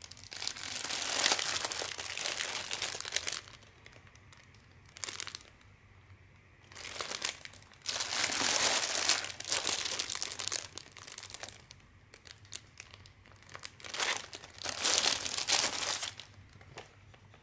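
Clear plastic wrapping on stamped cross-stitch kits crinkling as the packages are handled and shifted by hand, in several spells of a second to three seconds with short quiet gaps between them.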